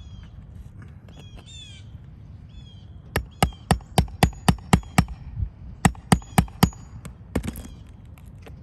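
Hammer blows on a roof during a roofing repair, about a dozen sharp strikes in two quick runs of roughly four a second, starting about three seconds in. A bird chirps before them.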